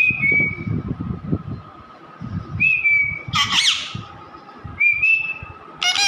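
Rose-ringed (Indian ringneck) parakeet calling: short level whistled notes three times, with a louder harsh, squawky call about halfway through and another beginning at the very end.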